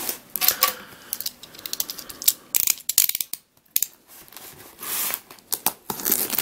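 Scattered sharp clicks, scrapes and short rustles of a postal package being handled and opened by hand.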